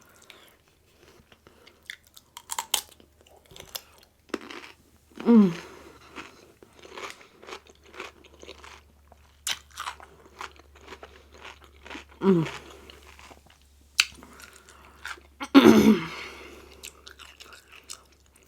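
Close-miked chewing and crunching of crisp fried rolled tacos, in irregular bites and chews. A few brief voiced mouth sounds fall in pitch among the chews.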